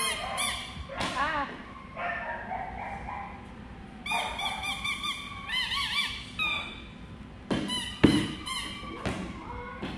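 Dog giving a series of high, rising-and-falling whines and yips in short runs. A single sharp thump comes about eight seconds in.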